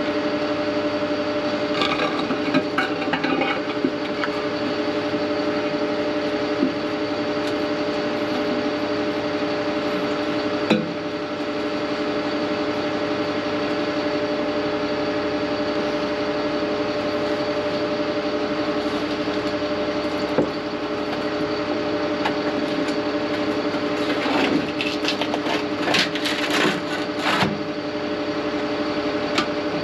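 Steady drone of the combination tanker truck's engine and pump running, with scattered metal clanks and knocks as the rusty grease-trap basket and its parts are handled in the brick chamber, a cluster of them near the end.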